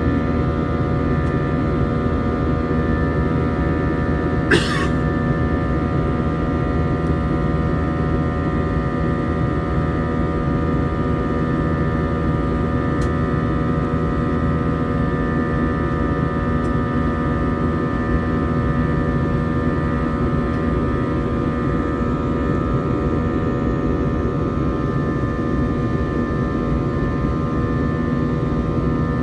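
Steady cabin noise inside an Airbus A321 airliner in flight: jet engine drone and rushing air with several steady whining tones over it. A brief sharp click about four and a half seconds in.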